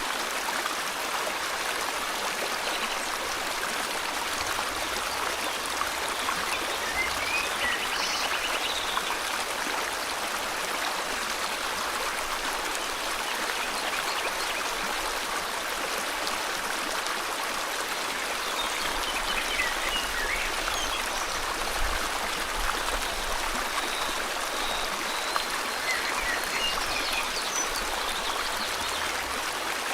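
River water flowing steadily, with faint bird chirps scattered over it, including a short rapid trill about a quarter of the way in.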